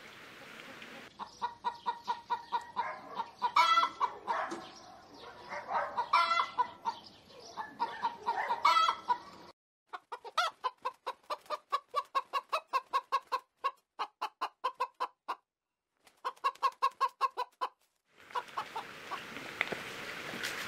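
Chickens clucking in quick runs of repeated calls, about four a second, with a few louder squawks in the first half. A steady rushing background comes back near the end.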